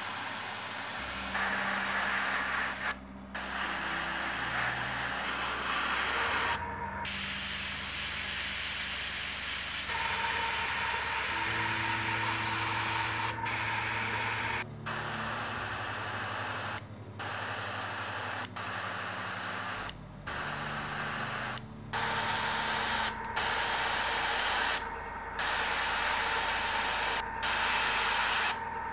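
Airbrush spraying paint: a steady air-and-paint hiss that stops and restarts abruptly many times, over a low steady hum.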